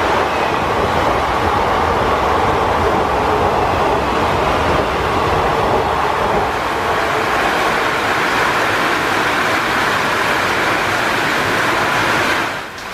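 Passenger coaches of an express train rushing past at speed in heavy rain, a dense rumble of wheels on rail mixed with the hiss of downpour. The low rumble thins after about six seconds as the last coach goes by and the train draws away, leaving mostly rain hiss, and the sound cuts off suddenly near the end.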